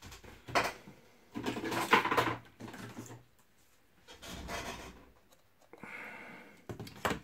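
Rummaging through fly-tying materials while searching for a packet of dubbing: irregular rustling of packets and handling noise, with a few sharp clicks and knocks, the last one near the end.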